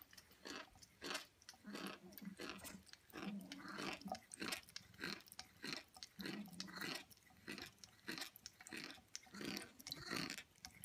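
A cat chewing close to the microphone: a steady run of short, wet, crunchy chews, about two a second.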